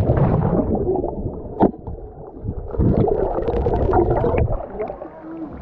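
Muffled underwater gurgling and bubbling, heard through a camera submerged in a swimming pool, as a swimmer close to the lens blows bubbles. There is a sharp knock about one and a half seconds in, and the bubbling swells in the second half.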